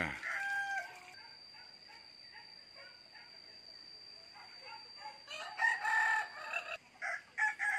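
Chickens clucking and a rooster crowing, busiest in the second half, over a faint steady high-pitched whine.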